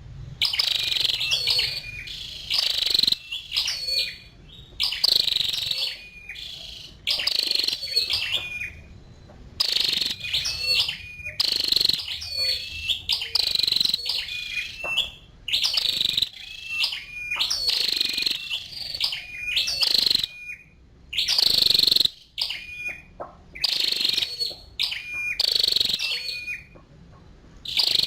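Female flowerpecker (chim sâu đầu đỏ) calling: clusters of sharp, high chirps repeated every second or two, with short pauses between.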